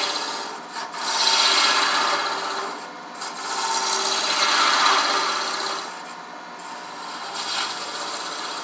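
A homemade flat steel parting tool cutting into small ebony beads spinning on a wood lathe: a rasping scrape in two long passes of a couple of seconds each, then a shorter, fainter pass near the end.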